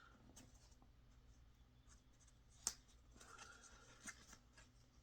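Faint handling noise of a knife and its sheath being turned over in the hands: soft scraping and rustling, with a sharp click about two and a half seconds in and a smaller one about a second and a half later.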